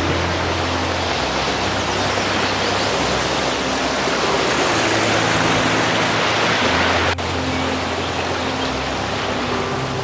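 Water rushing steadily over a small river waterfall, an even hiss with a brief dropout about seven seconds in.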